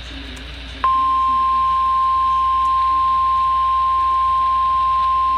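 NOAA Weather Radio warning alarm tone: a single steady 1050 Hz tone that comes on abruptly about a second in and holds. It is the alert signal that a new warning broadcast is about to follow.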